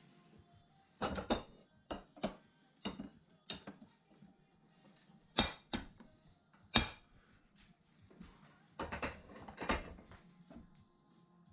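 Irregular metallic clinks and knocks, about a dozen sharp strikes with a brief ring, the two loudest around the middle.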